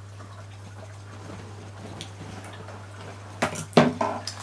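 Wet mouth sounds of someone sucking and licking a hard-candy lollipop to taste it, quiet at first, then two short louder smacks near the end, over a steady low hum.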